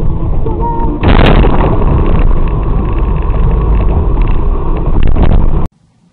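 Vehicle collision recorded by a dashcam: a sudden loud crash about a second in, followed by several seconds of loud, distorted noise with a few sharp knocks. The sound cuts off abruptly near the end.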